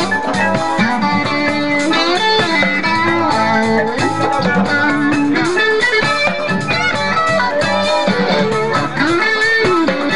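Live highlife band playing an instrumental stretch with no singing, the electric guitar to the fore over drums, bass and keyboard.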